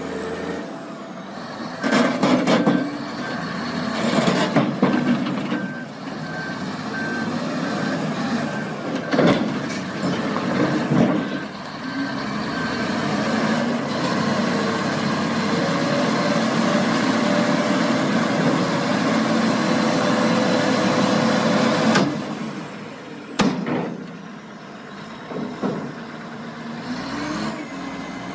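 Heavy construction machinery running under load, with a backup alarm beeping repeatedly through the first half. Loud clanks and knocks come at several points, and the sound changes abruptly about 22 seconds in.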